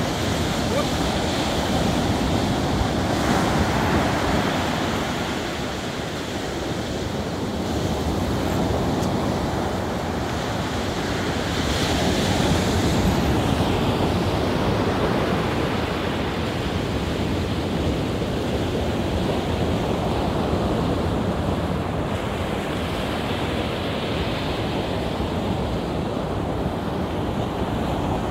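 Ocean surf breaking and washing up a sandy beach, with wind on the microphone; the rush swells and eases slowly with the waves.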